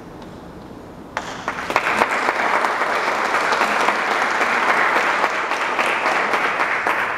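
Audience applauding. The clapping breaks out about a second in, builds quickly to a steady, dense applause and begins to die away near the end.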